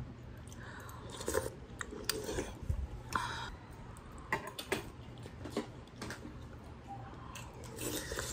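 Eating sounds: a metal spoon clinking and scraping in an earthenware pot of chicken soup, with chewing, heard as scattered quiet clicks and short rustles.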